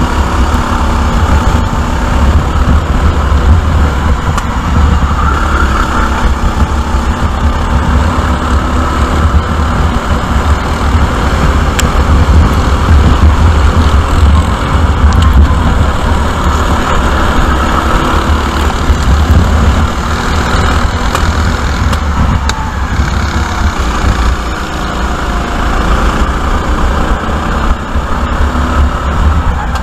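Sodi RT8 rental kart's four-stroke engine running at racing speed, heard onboard; the engine note rises and falls through the corners, over a heavy low rumble of wind on the microphone.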